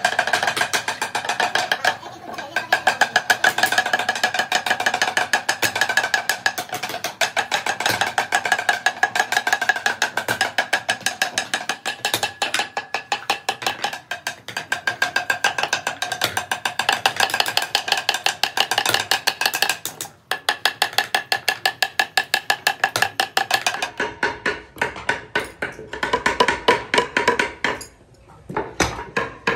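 Small hammers tapping metal wire into grooves on a segmented wooden hotpot ring, a fast, even run of several taps a second, each with a ringing tone. About 24 seconds in the tapping changes pitch and becomes more spaced.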